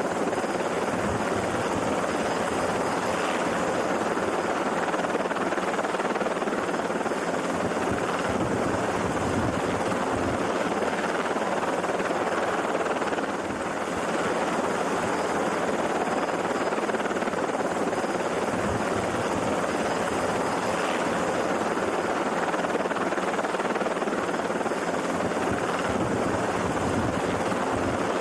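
Steady helicopter rotor and engine noise heard from on board the helicopter, with a brief dip about halfway through.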